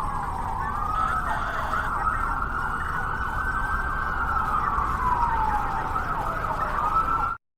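Siren wailing, one tone sliding slowly up and down in long cycles, that cuts off suddenly near the end.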